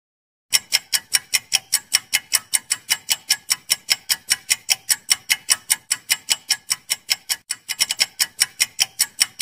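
Clock-ticking sound effect for a quiz countdown timer: fast, even ticks, about five a second, starting about half a second in.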